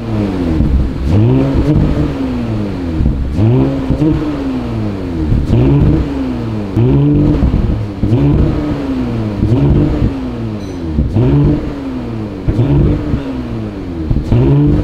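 Porsche Cayenne Coupe engine revved over and over while the car stands still, heard through an aftermarket EH Performance cat-back exhaust with its exhaust valves open. Quick blips, each rising and falling back, about one every second or so.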